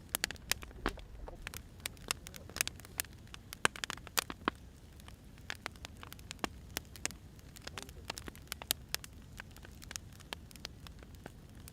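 Wood fire crackling: irregular sharp pops and snaps of burning firewood, several a second, over a low steady rumble of the flames.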